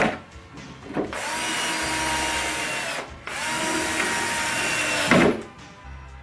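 Cordless drill driving screws into cabinet panels: two runs of about two seconds each, the motor whine dropping and then holding a steady pitch, with a short pause between them. The second run ends in a sharp knock.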